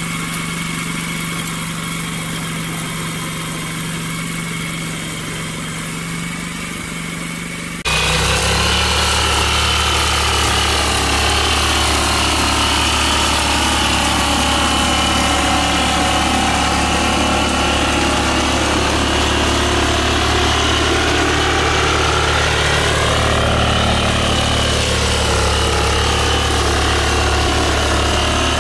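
Grass-cutting machine's engine running steadily. About eight seconds in it changes abruptly to a louder, deeper-toned running, and the pitch then wavers slowly up and down.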